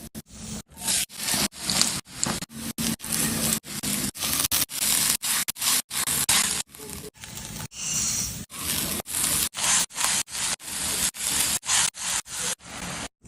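Rhythmic scraping, a little over two short rasping strokes a second, each stroke cut off cleanly before the next.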